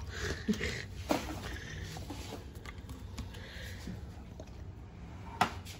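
Hands handling a plastic countertop ice maker: soft, scattered clicks and rustles, with one sharper click near the end.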